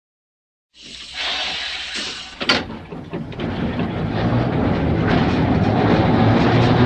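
Mumbles Railway tram car on its rails: after a moment of silence a hiss fades in, a sharp click sounds about two and a half seconds in, and then a rumble with a steady hum rises and grows louder as the car gets under way or draws near.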